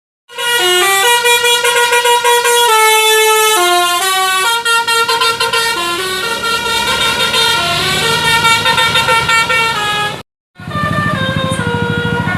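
Bus 'telolet' Basuri multi-tone horn playing a melody of short stepped notes. It cuts off abruptly about ten seconds in, and a second horn tune starts, with a low rumble underneath.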